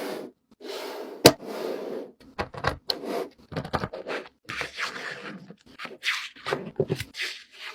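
A rapid string of short clicks, knocks and scraping or rustling sounds, with one sharp click about a second in being the loudest.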